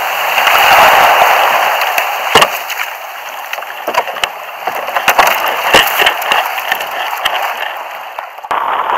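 Surf washing around a plastic sit-on-top fishing kayak in the shallows, the rush fading after a couple of seconds. Scattered sharp knocks and clicks follow as the kayak and paddle are handled during the push-off and first strokes. A fresh rush of water comes in near the end.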